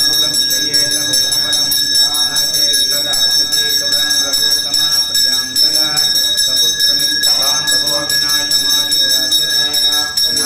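Temple bell rung continuously during the ritual bathing of the deity: an unbroken, bright, high ringing.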